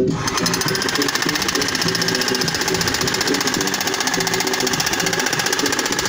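Makita electric demolition hammer running, its chisel hammering into hard-packed soil with a fast, steady rattle of blows; it cuts in right at the start and stops at the very end. Music plays underneath.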